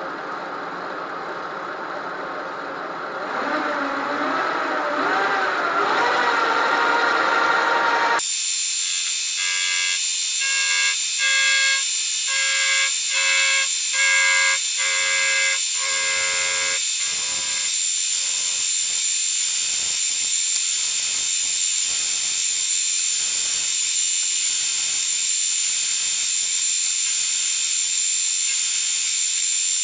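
Servo-motor metal lathe spinning up with a rising whine, then a carbide tool taking an interrupted cut across the hex head of a grade 8 steel bolt. From about eight seconds in there is a loud cutting noise, and in the second half a high-pitched screech that pulses about once a second.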